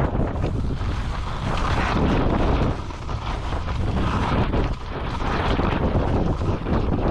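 Wind buffeting the microphone of a skier moving downhill: a constant low rumble, with the hiss of skis over snow swelling and easing.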